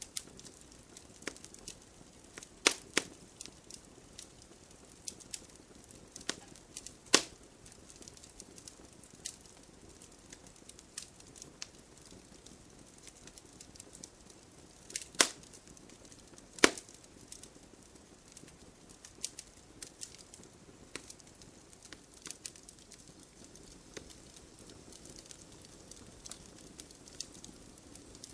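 Wood fire crackling: irregular sharp pops and snaps over a soft hiss, with a few louder pops, two close together about three seconds in and two more about fifteen and seventeen seconds in.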